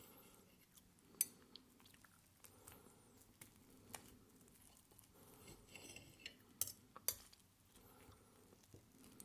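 Soft, close-miked chewing of pancake with maple syrup, broken by a few sharp clicks of cutlery against a plate, the loudest about a second in and two close together near the end.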